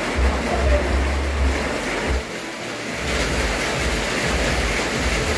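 Steady rain, a constant rushing hiss, with a low rumble on the microphone that drops out briefly about two seconds in.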